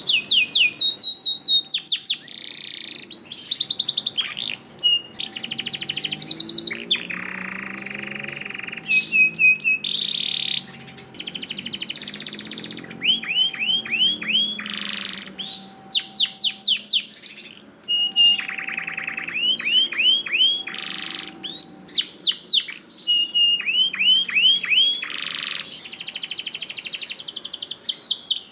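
Male domestic canary singing continuously: a long run of rapid trills of repeated chirps, buzzy rolls and whistled glides, switching to a new phrase every second or two.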